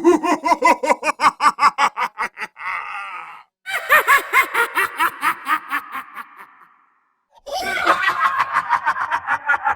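Evil doll laugh sound effect: three bouts of rapid staccato cackling, about five 'ha's a second, with a breathy gasp near the end of the first bout and short pauses between bouts.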